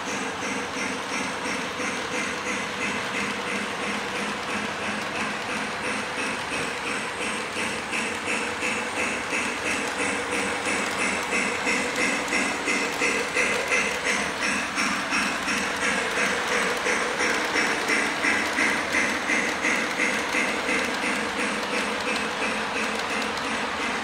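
Model steam train running on shelf track: a steady, fast rhythmic clacking with a motor hum underneath. It grows louder through the middle as the locomotive comes close, then eases off near the end.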